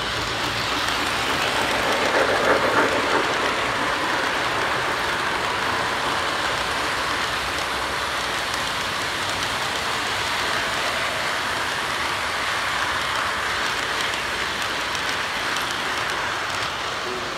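Lionel model freight train rolling past on metal track: a steady whirring rattle of wheels on rails, loudest about two to three seconds in as the steam locomotive goes by, then even as the cars follow.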